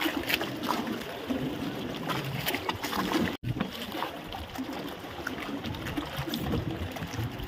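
Water sloshing and splashing irregularly against the hull of a small boat, with scattered short splashes and knocks. The sound drops out for an instant about three and a half seconds in.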